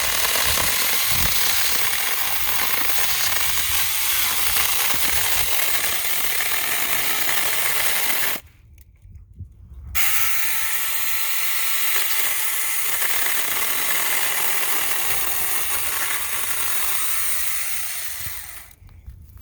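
Saker 6-inch mini cordless electric chainsaw running and cutting a branch. It runs steadily, stops suddenly about eight seconds in, starts again a second and a half later, and runs down near the end.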